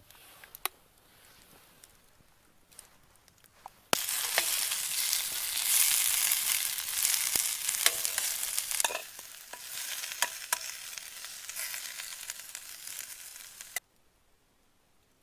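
Food frying in a hot pan: a loud sizzle with scattered pops and crackles that starts suddenly about four seconds in and cuts off sharply near the end.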